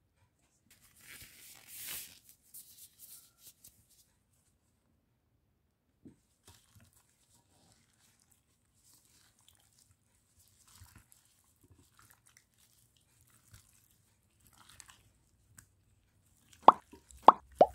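Hands in a thin plastic glove squishing raw chicken wings through an oily paprika marinade in a glass bowl: faint wet squelches and glove crinkles, with a louder plastic rustle about a second in. Three sharp, loud pops come quickly one after another just before the end.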